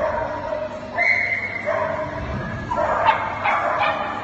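A dog barking repeatedly in short, high-pitched yips, several in quick succession.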